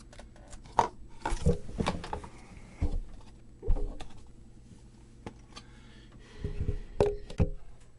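Handling noises on a workbench: several separate clicks and knocks of tools and small objects being put down and picked up, with a few close together near the end, over a low electrical hum.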